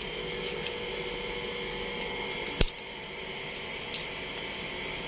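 Chopped onions sizzling in hot oil in a karahi, a steady hiss, with a few sharp clicks, the loudest about halfway through.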